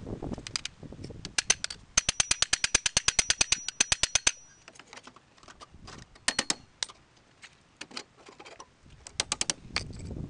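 Rapid sharp metallic clicking and tapping from hand tools worked on a bare car chassis, played back sped up. About two seconds in it becomes a dense, even run of about a dozen strikes a second with a faint high ring, then breaks into scattered clusters of clicks.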